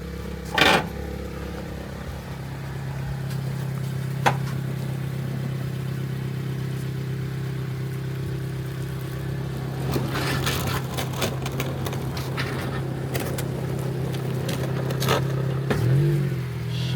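Car engine running steadily at low revs as the lowered car rolls slowly, with a few short sharp clicks or scrapes scattered through; near the end the revs begin to rise.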